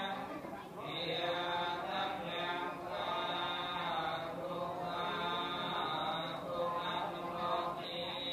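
Buddhist chanting: a slow, sustained chant with drawn-out syllables and brief pauses for breath every second or two.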